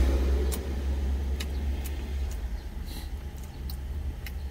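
Steady low hum of a truck engine idling, heard inside the cab. Over it come scattered small clicks of eating: a wooden spoon and chopsticks against a stainless steel food container, and chewing.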